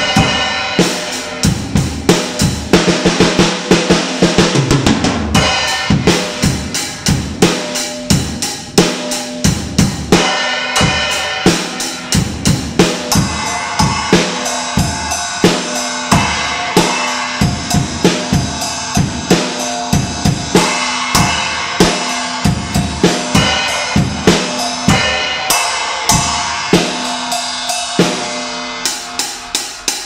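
Acoustic drum kit played continuously, kick, snare and toms under the bright wash of cheap brass beginner cymbals (Nagano Lake 14-inch hi-hat, 18-inch crash, 20-inch ride). The hits come thick and fast, several a second, and the drums are a little out of tune.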